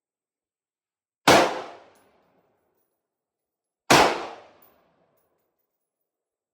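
Two single shots from a 5.56 AR-15-type gun firing 55-grain Federal ammunition, about two and a half seconds apart. Each crack is followed by a short echo that dies away.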